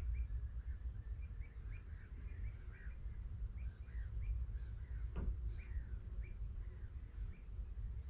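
Small birds chirping with many short, quick calls, over a steady low rumble; a brief click about five seconds in.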